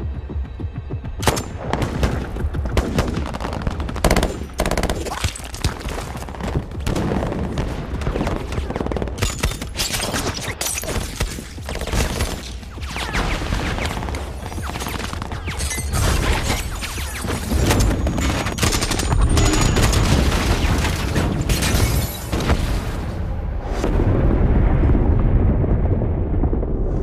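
Film battle sound: dense automatic gunfire, rapid bursts of shots cracking one after another. Near the end a heavy explosion rumbles.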